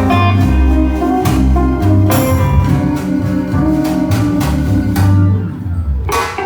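Guitar-led music with drums played loud through a 2.1 speaker system, with strong, heavy bass from the subwoofer.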